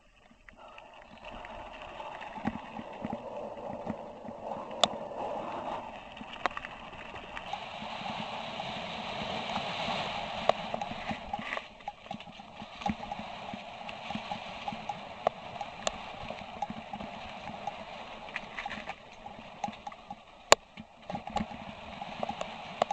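Mountain bike riding over a gravel track and then a trail of dry leaves: tyres crunching over loose ground, with the bike rattling and knocking over bumps. Sharp knocks come through; the loudest is about 20 seconds in.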